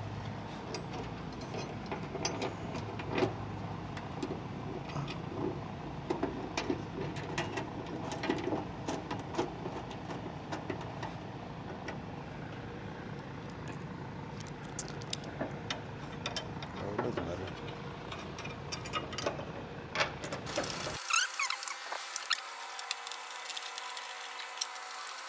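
Steady workshop background noise with scattered small metal clicks and taps as bolts are threaded by hand into the hood hinges of a Ford F-250 while the hood is held up.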